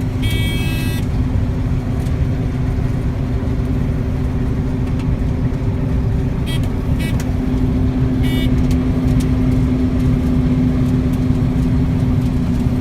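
Combine harvester running steadily, a constant engine and machinery drone with a steady hum, heard from inside the cab. A few short high-pitched sounds cut in briefly, once near the start and a few times around the middle.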